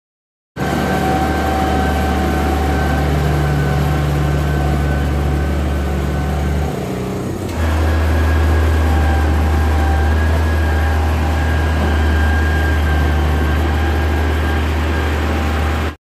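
Diesel engines of road-building machinery running steadily, a deep hum with a thin high whine over it. About seven seconds in the sound dips and changes abruptly to a slightly louder engine drone, the Mitsubishi MG-230 motor grader running close by.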